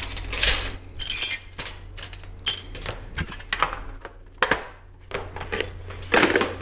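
Small steel taper pins clinking against each other and a thin metal tray as they are handled and sorted by hand: a handful of separate sharp clinks, one ringing briefly about a second in.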